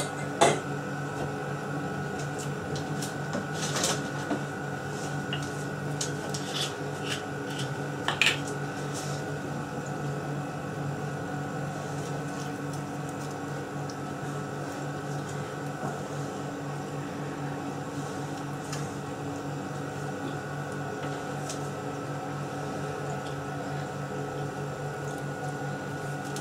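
Steady hum of a running kitchen appliance, with a few light clicks and knocks in the first eight seconds or so from handling the oil bottle and basting brush over the grill rack.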